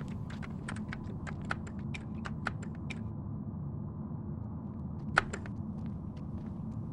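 Typing on a computer keyboard: a run of quick, irregular key clicks that stops about three seconds in, then one louder click a couple of seconds later, over a steady low hum.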